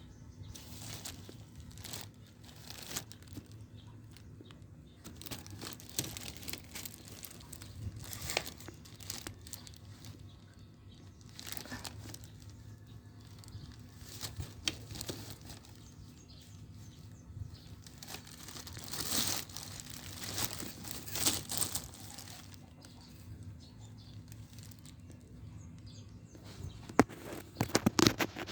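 Packaging crinkling and rustling as it is handled, in irregular bursts with scattered clicks; a few sharper knocks near the end.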